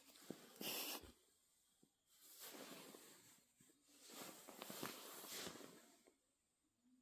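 A small dog wriggling on its back on a couch, its body and face rubbing against a fleece blanket and cushion: soft fabric rustling and snuffling breaths in three bursts, with short quiet gaps between.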